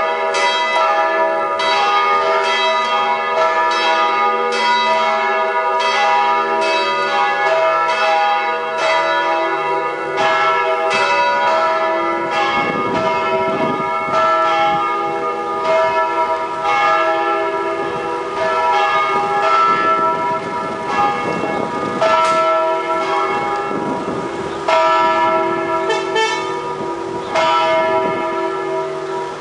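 Full peal of three church bells ringing together, thought to be tuned to E, G sharp and B, a dense overlapping clangour of strikes. This is the second call to the Saturday evening Sunday mass. The strokes grow sparser over the last few seconds.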